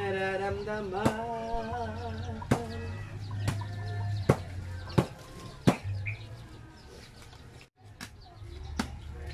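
A rooster crowing once, one long wavering call lasting about three seconds, then sharp knocks or taps every second or so.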